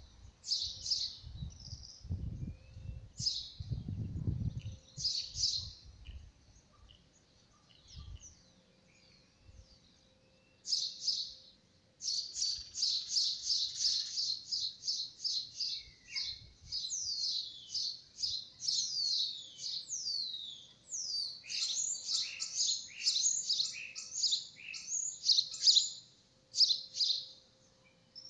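Small birds chirping: quick high chirps in short groups at first, then, from a little before the halfway mark, a near-continuous rapid series of several chirps a second. A few low rustling thumps in the first few seconds.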